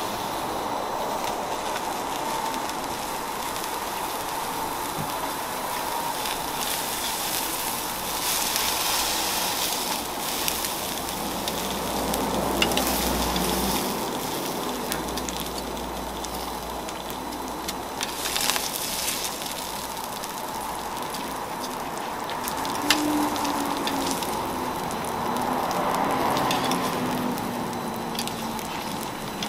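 Food sizzling on a flat steel griddle as an egg with cheese, ham slices and bean sprouts fry. A steady hiss that swells a few times, with a few sharp clicks of a metal spatula and tongs against the griddle.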